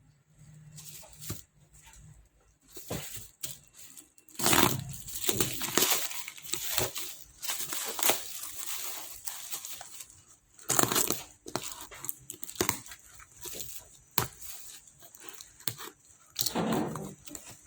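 Packaging being handled and torn open: irregular plastic crinkling, rustling and tearing, with sharp clicks in between.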